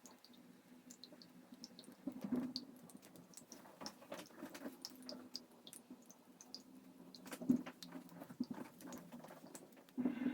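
Hamilton Beach Scoop single-serve coffee maker brewing: a faint low steady hum with irregular small clicks and pops of water, and a couple of louder spurts about two and seven and a half seconds in.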